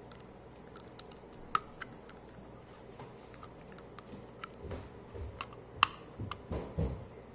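Small, irregular plastic and metal clicks and taps from a Glock 26 magazine, its spring and an extension base plate being handled and fitted. The two sharpest clicks come about a second and a half in and near six seconds, with soft handling bumps toward the end.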